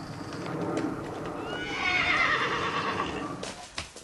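A horse whinnies once, a long call of about a second and a half starting around the middle, followed near the end by hoofbeats.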